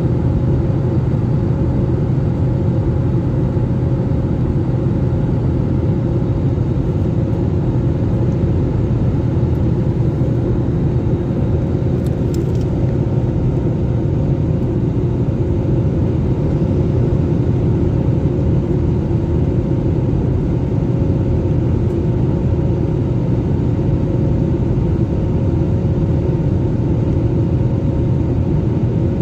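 Airliner cabin noise in flight: a steady, even drone of engines and airflow with a constant low hum. A faint brief click comes about twelve seconds in.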